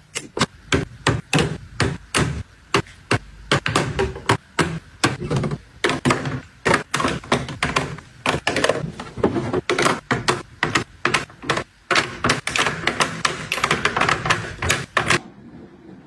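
Makeup items and perfume bottles set down and shifted in clear acrylic organizer drawers: quick hard taps and clacks, several a second, which stop near the end.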